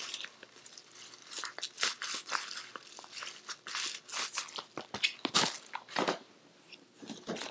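Bubble-wrap plastic crinkling and crackling as it is handled and pushed aside, in a run of irregular short crackles.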